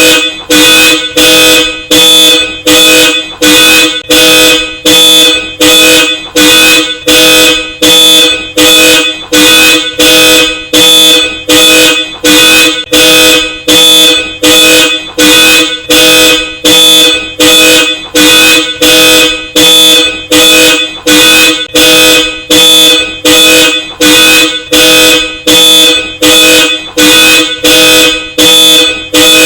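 Car alarm sounding through Hella Supertone dual-tone horns: loud, evenly repeated honks, about three every two seconds, each a steady two-note blare.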